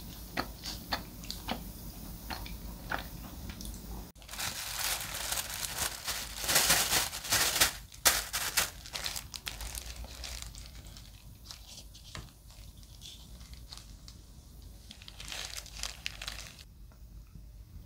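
Light clicking for about four seconds, then a thin plastic bag crinkling and rustling as lettuce leaves are pulled from it with a plastic-gloved hand. The crinkling is loudest around six to eight seconds in and softer after that.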